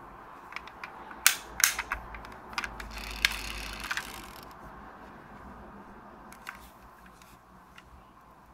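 Die-cast metal Subaru Impreza WRX STI model car being handled: a run of small sharp clicks and snaps, the loudest a little over a second in as its opened door is clicked shut, with a short rasping noise around three to four seconds in.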